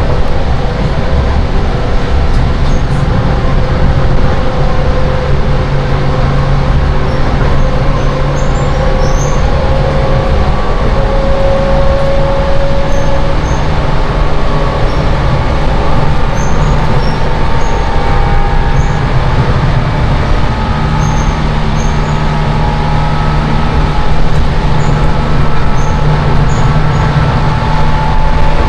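Loud running noise heard inside a Seibu 10000 series Red Arrow limited express train at speed: a steady heavy rumble with low hums that shift slightly in pitch.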